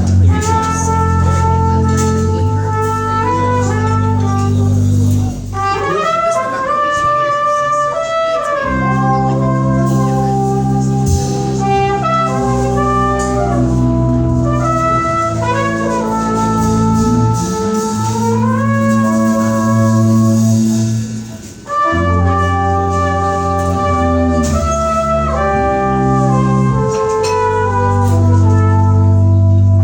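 A small jazz band playing live: a lead instrument, likely brass, holds long notes and slides between them over a bass line. The bass drops out for a few seconds early on, then comes back in.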